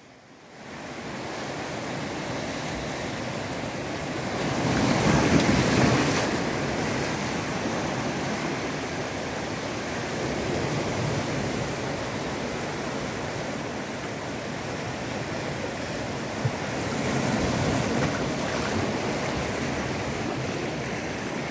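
Sea waves washing and breaking against a rocky shore in a steady rush. Two bigger surges come in, one about five seconds in and another about two-thirds of the way through.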